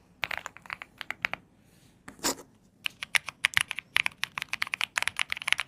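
Typing on an Epomaker Galaxy 100 full-size mechanical keyboard, its keys clacking. A short run of keystrokes comes first, then a brief pause and one heavier stroke, then fast continuous typing.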